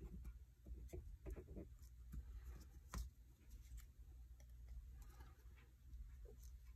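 Faint handling of paper cardstock on a cutting mat: light rustles and small taps, with one sharper click about three seconds in.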